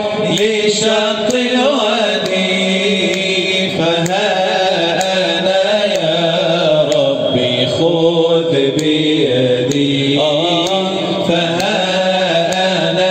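A male voice chanting an Islamic nasheed (religious song) in Arabic, in long drawn-out phrases whose pitch wavers and glides.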